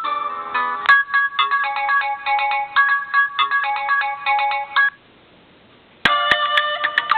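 Ringtone melodies from a Prestigio MultiPhone 4020 DUO smartphone. One tune ends just under a second in and a second plays a repeating pattern of short notes until about five seconds in. After a second's pause a new ringtone begins.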